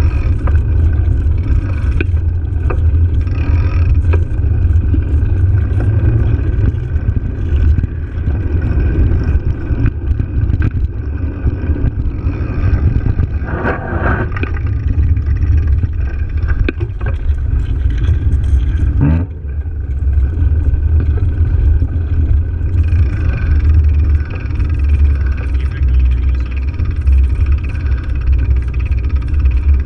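Loud, steady low rumble of wind buffeting a bicycle-mounted action camera's microphone as the bike rolls along, mixed with tyre noise over cracked asphalt.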